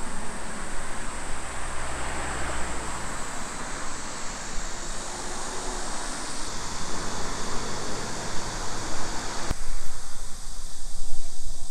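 Steady outdoor background rush, an even hiss with no single clear source. Near the end there is a click and the background changes abruptly, becoming thinner in the middle range.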